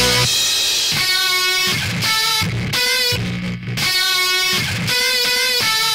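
Background music: electric guitar notes ringing out one after another.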